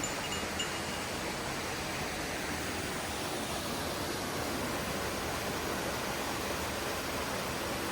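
Steady rush of water from a mountain stream or waterfall, an even hiss with no break.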